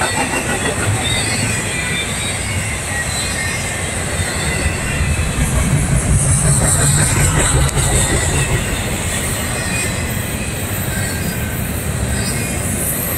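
Double-stack intermodal container freight train passing: steady rumble of well cars' wheels on the rails. A high wheel squeal swells about halfway through.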